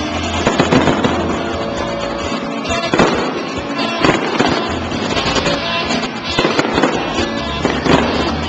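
Fireworks shells bursting overhead in several sharp bangs at irregular intervals, over the music accompanying the display.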